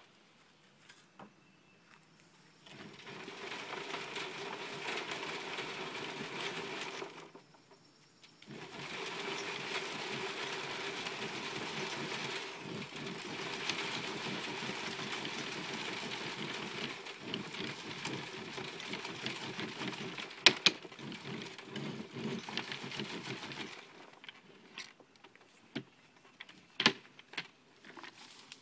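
Wooden compost sifter box shoved back and forth on its wooden glide rails over half-inch wire mesh: a continuous scraping rattle of wood on wood and compost shaking on the screen, in two long spells with a short pause between. Two sharp knocks come later, one partway through and one near the end.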